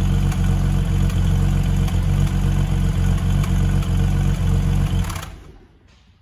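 Marcos 3-litre GT's engine idling steadily after a cold start, heard at the tailpipes; it stops about five seconds in and dies away.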